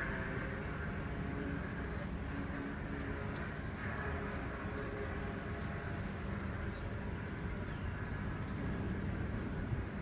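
Steady wind rumble buffeting the microphone, with faint high chirps now and then.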